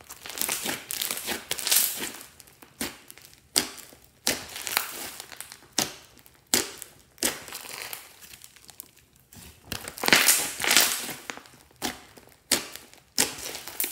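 Hands squeezing, folding and poking a large mound of fluffy slime mixed with foam beads: crackling, popping squishes in irregular pushes about once a second, loudest about ten seconds in.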